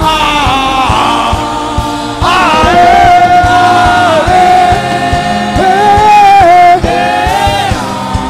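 Gospel worship singing, with long held notes that slide between pitches over a low instrumental backing, growing louder about two seconds in.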